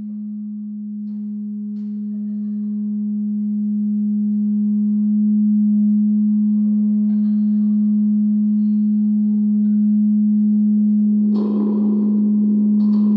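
A single steady low drone tone, held without a break at one pitch and slowly growing louder, with faint higher overtones. About eleven seconds in, a rushing noise with scattered clicks joins it.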